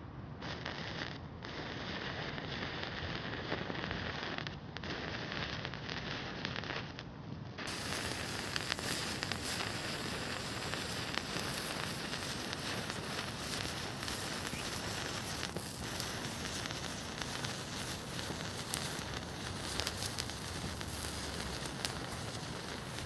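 A long row of match heads catching fire one after another, a continuous fizzing hiss of flaring matches dotted with many small sharp crackles.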